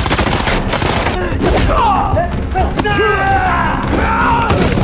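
Film action soundtrack: a rapid string of pistol shots for about the first second, then voices and music as the fight goes on.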